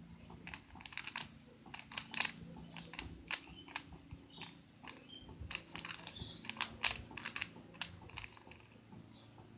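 A 3x3 puzzle cube being turned quickly by hand: rapid, irregular plastic clicks and clacks as the layers turn and snap into place, coming in bunches with short pauses between.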